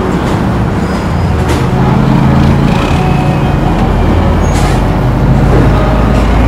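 A heavy road vehicle's engine running steadily amid traffic noise, with a couple of short hisses about one and a half and four and a half seconds in.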